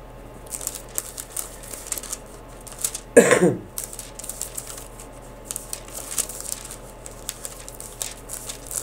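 Thin Bible pages being leafed through and turned, a run of quick papery rustles and flicks, with one louder short sound falling in pitch about three seconds in.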